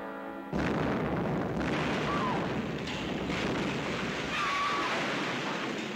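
A blasting charge goes off in a hillside mine. A sudden explosion comes about half a second in, cutting off held orchestral notes, then a noisy rumble carries on for several seconds.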